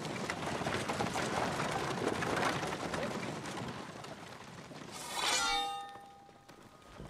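A massed army shouting and clattering arms. About five seconds in, a sharp metallic strike rings out as a blade, its clear ringing tones fading over about a second.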